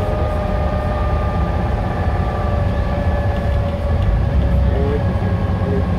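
Dennis Trident double-decker bus's diesel engine running steadily under way, heard from inside the bus: a deep rumble with a whine that falls slowly in pitch.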